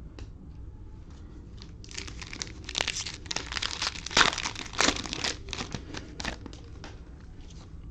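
Cellophane wrapper of a Panini Mosaic cello pack of trading cards being torn open and crinkled by hand, a burst of crackling that starts about two seconds in and dies away after about six seconds.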